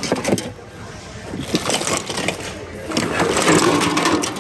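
Items knocking and rustling as they are handled and rummaged through in a thrift bin, with voices in the background.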